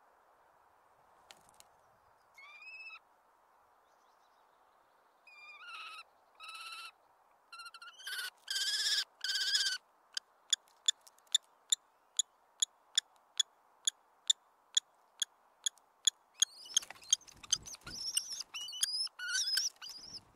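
Common kestrels calling: drawn-out whining calls, then a run of sharp ticks about three a second, then more whining calls near the end.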